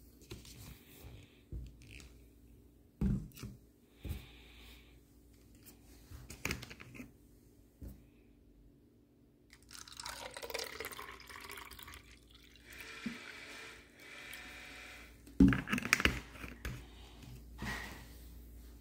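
Scattered light knocks and clicks on a stone countertop, then iced tea poured from a plastic bottle into a plastic cup for several seconds, splashing and hissing. The bottle is set down on the counter with a few sharp knocks, the loudest sounds in the clip.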